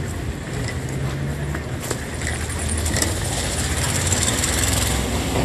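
A steady low hum, with a few light clinks of metal spoons against steel bowls.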